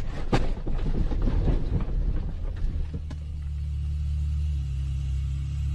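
Car crash aftermath heard from inside the cabin: a sharp bang just after the start and a scatter of knocks and rattles for about three seconds, then a steady low rumble from the stopped car.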